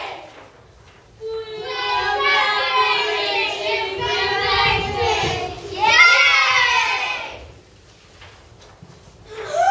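A group of children singing together, beginning about a second in and breaking off for a short pause before starting again near the end.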